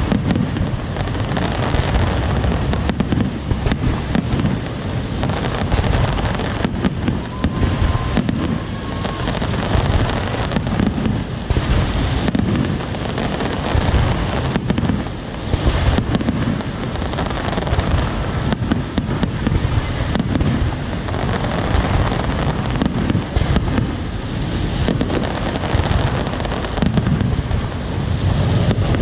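Fireworks display: a dense, unbroken barrage of overlapping bangs, heaviest in the low booms.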